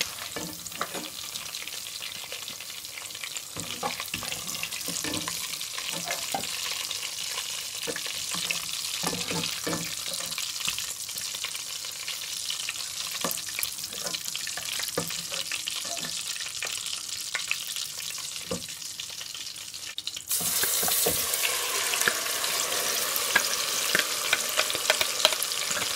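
Meat frying in hot vegetable oil in a metal pot: a steady sizzle, with scattered clicks and knocks of a spoon against the pot as pieces are lifted out. About 20 seconds in it turns suddenly to a louder, brighter sizzle as blended green pepper fries in the oil.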